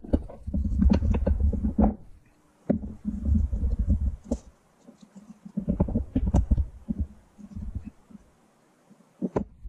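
Fish pieces and sliced vegetables being pressed and packed down into a glass quart jar with a wooden muddler and by hand. There are dull rumbling knocks with sharp clicks, in four bursts of one to two seconds each.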